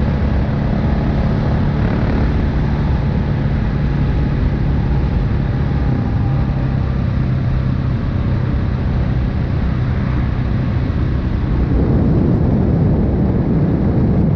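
KTM 690 Enduro R's single-cylinder engine and exhaust running at a steady pitch, growing louder and rougher near the end.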